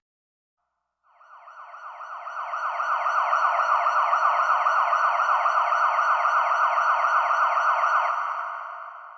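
Synthesized siren sound effect from the SC-D70 sound module's Siren patch: a tone sweeping rapidly upward again and again, several times a second. It fades in, holds steady, then fades out near the end.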